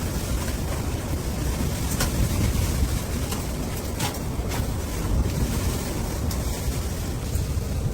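Strong blizzard wind buffeting the microphone: a steady, gusty low rumble, with a few faint sharp clicks.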